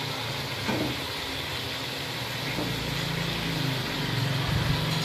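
Steady low hum with a soft hiss from a pot of chopped gourd cooking in oily masala over a gas stove burner, with a faint knock less than a second in.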